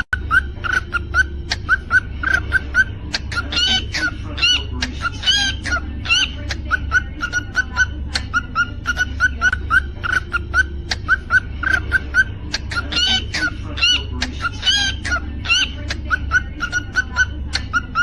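Cockatiel singing: a steady run of quick, short chirps, broken a few times by louder warbling whistled phrases. A low steady hum runs underneath.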